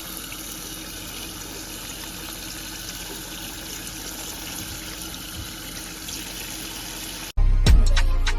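Steady rush of running water, like a tap running. About seven seconds in it cuts off abruptly and music with a heavy bass beat starts.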